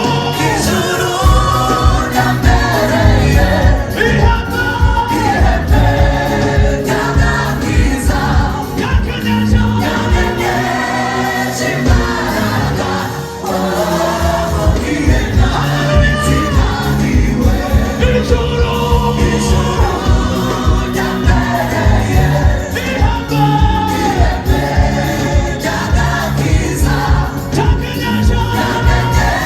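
Gospel choir singing in parts with band accompaniment and a steady drum beat. The drums and bass drop out for about a second and a half near the middle, then come back.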